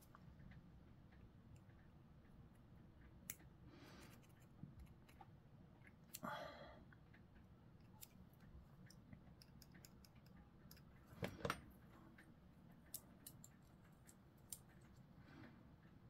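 Mostly near silence, broken by faint scattered clicks and taps of small plastic model parts being handled and pressed together, with a short louder double click about eleven seconds in.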